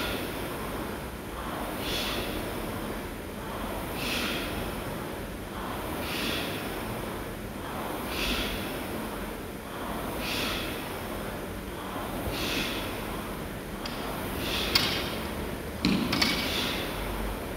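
Hard, rhythmic breathing of a rower on a Concept2 air-resistance rowing machine, a forceful exhale about every two seconds in time with the strokes, over the steady whirr of the flywheel. A sharp click and then a knock sound near the end.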